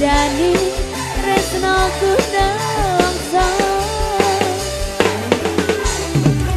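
Live campursari band music played loud through a PA sound system: a woman sings a wavering melody into a microphone over a steady bass line and drum beat.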